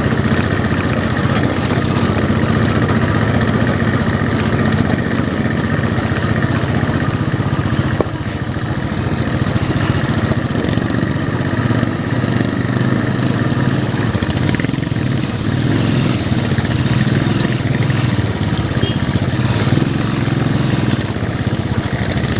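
Royal Enfield Bullet 500 single-cylinder engine running steadily under way, easing off briefly about a third of the way in, with the other Enfields' engines close by.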